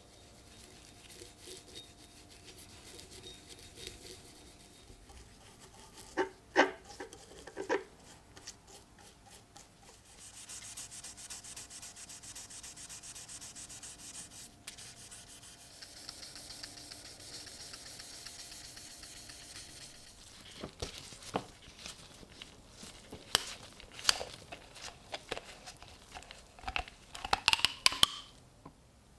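A cloth rubs over the pitted iron head of an 1896 military pickaxe in steady scrubbing strokes for several seconds. Before that come a few sharp knocks of the metal being handled. Near the end there is a run of clicks and a short rising squeak as a plastic bottle is opened.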